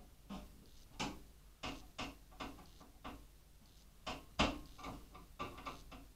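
Screwdriver working small fine-threaded screws during a PC build: a run of irregular clicks and light taps. Some of these screws feel cross-threaded.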